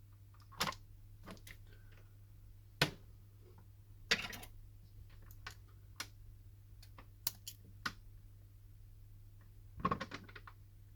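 Scattered small clicks and taps from handling a smartphone's parts and small tools on a workbench, with a short crackle about four seconds in and a quick cluster of clicks near the end, over a faint steady hum.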